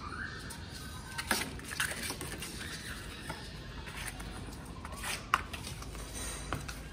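Dog claws scratching and tapping on flattened cardboard, with a few sharp clicks, the loudest about five seconds in.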